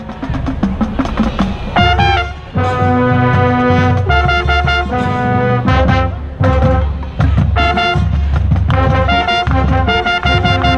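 Marching band playing, with the trumpet right at the microphone loudest: bright brass notes held in short phrases, the rest of the band underneath.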